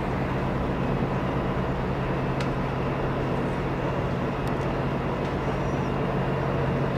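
Bus engine idling with a steady low drone, under a wash of surrounding traffic noise.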